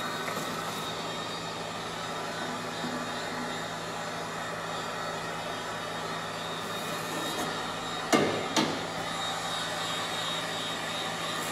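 Steady whooshing blower noise with a low hum, with two sharp knocks about eight seconds in, half a second apart.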